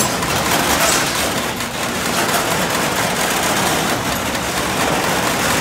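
Commercial door operator's motor running to lower the door, with a loud, steady clattering rattle from the drive and door, starting suddenly as the operator is switched on. The door is being run to its down limit to test the limit-switch setting.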